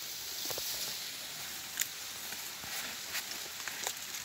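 Dry leaves and brush rustling, with a few sharp clicks, as a wire-mesh snake trap is pulled out of the undergrowth, over a steady high hiss.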